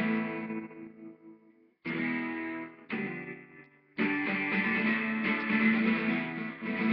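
Twelve-string acoustic guitar played in a rock and roll song: a strummed chord rings and fades, two shorter chords follow, then steady strumming from about four seconds in.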